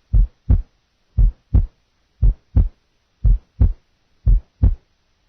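Normal heart sounds heard by auscultation at the right base of the heart (aortic area): five regular lub-dub beats about a second apart, each a single, unsplit first sound followed by the second sound.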